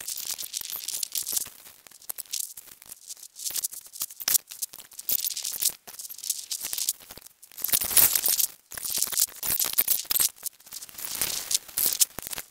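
Hand tools clicking and rattling in quick, irregular bursts, such as a ratchet wrench being worked on a bolt in the engine bay.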